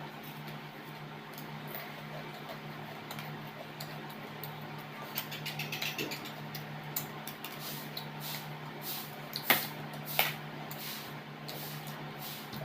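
Eating sounds: chewing with small clicks of a utensil against a plate or bowl, over a steady low hum. The two loudest sharp clicks come about two-thirds of the way through.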